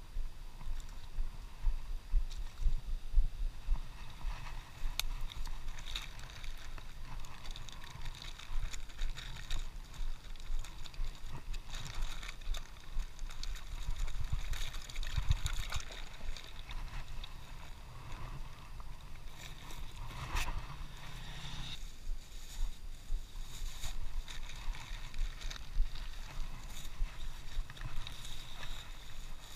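Rustling and crackling of a plastic bag and a mesh net bag being handled by gloved hands, with many small clicks, over a steady low rumble on the microphone.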